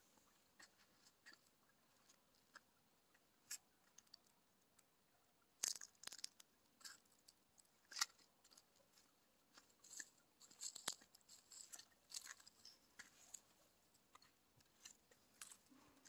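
Faint, scattered crackling and rustling of dry grass stems and leaves underfoot, with a few sharper clicks about six and eight seconds in.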